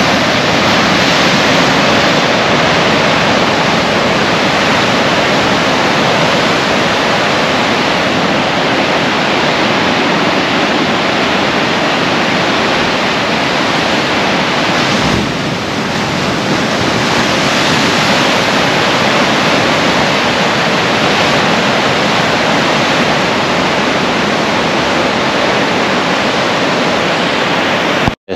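Heavy sea surf breaking over a rocky shore: a loud, steady rush of churning white water, easing briefly about halfway through.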